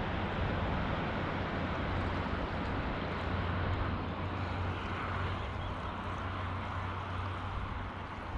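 Steady rush of a high, fast-flowing river, with a low rumble of wind on the microphone.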